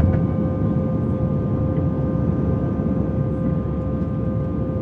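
Airbus A320 jet engines heard inside the passenger cabin: a steady roar of engine and airflow noise with several steady whining tones over it.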